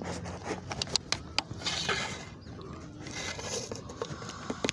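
Handling noise at the microphone: a jacket sleeve rubbing against the handheld camera, with a series of sharp clicks and knocks and a stretch of rustling about two seconds in.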